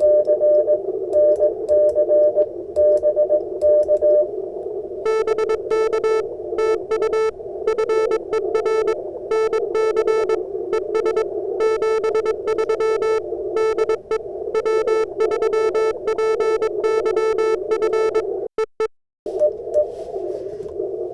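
Morse code (CW) from an amateur radio transceiver, keyed in dits and dahs over steady receiver hiss; the code is sent with a BaMakey TP-III iambic paddle. A higher, pure tone is keyed for the first few seconds. From about five seconds a lower, buzzier tone is keyed in a long run, and the sound drops out briefly near the end.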